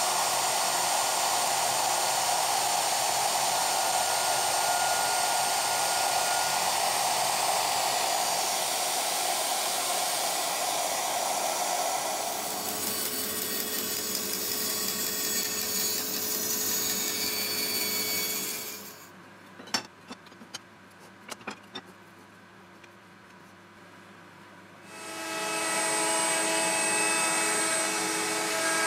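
Woodworking power tools running in turn: a handheld router cutting a walnut blank with its dust extractor running, then a bandsaw cutting, steady and loud. About 19 seconds in it drops to a quieter stretch with a few sharp knocks. About 25 seconds in a router-table router runs up to a steady whine with several held tones.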